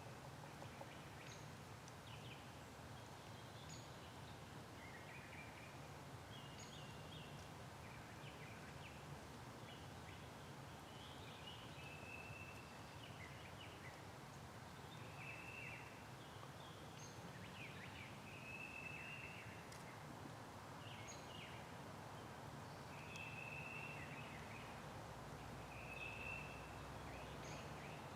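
Faint birdsong: scattered short chirps and several held whistled notes of about a second each, over a steady low background murmur.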